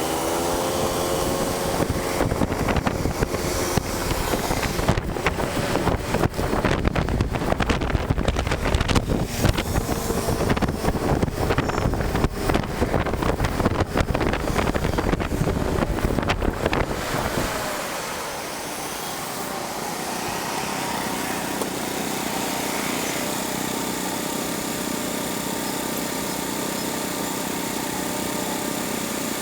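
Wind buffeting the microphone with road noise while riding a Kymco Candy 3.0 electric scooter at speed. About 18 s in the buffeting eases to a steadier, quieter hiss.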